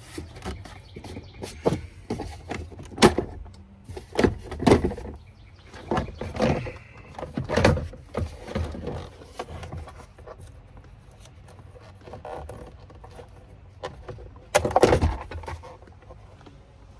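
Irregular knocks, clicks and clatter of hand tools and plastic interior trim being handled while a dashboard is taken apart, with a few louder knocks spread through it.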